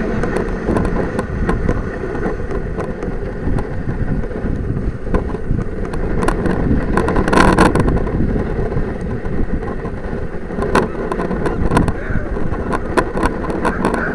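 Dog sled running over packed snow: a steady scraping rush from the runners, with frequent knocks and rattles from the sled and one louder clatter about halfway through.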